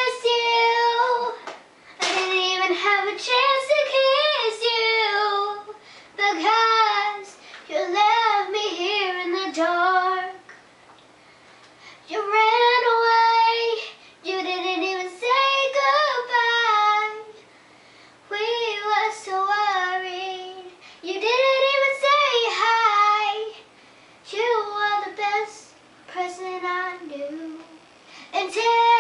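A young girl singing a love song unaccompanied, in sung phrases separated by short pauses.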